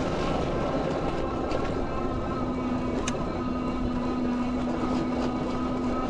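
Aventon Aventure fat-tire electric bike riding through snow: a steady hum and whine from its electric drive motor over the even rushing noise of the fat tyres on snow. The lower hum grows stronger about two seconds in.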